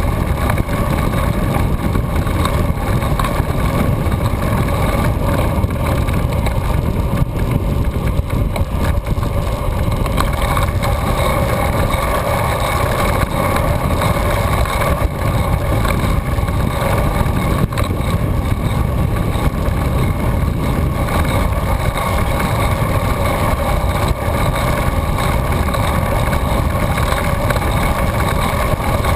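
Steady wind and road noise on a camera riding on a moving recumbent trike: a constant low rumble with a steady drone over it, unchanging throughout.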